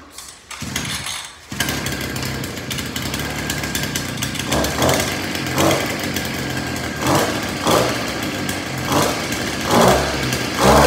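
GB Moto 51cc two-stroke pocket dirt bike engine starting up about a second and a half in, then idling with about seven short throttle blips.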